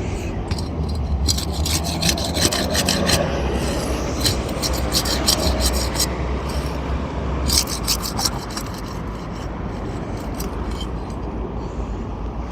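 Asphalt roof shingles being unsealed with a flat pry tool worked under their edges: a scraping rub as the sealant strip is broken, with bursts of sharp crackling clicks about a second in, mid-way and near the end, over a steady low rumble.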